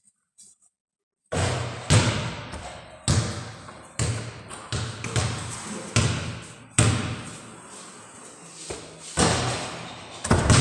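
A basketball striking the hoop and bouncing repeatedly on a hard floor: about a dozen sharp thuds, starting about a second in, each ringing on in a large bare room with block walls.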